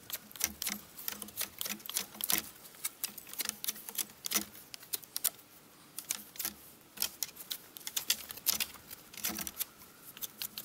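Knife whittling a wooden stick: a run of short, sharp scraping strokes at an uneven pace of about two or three a second.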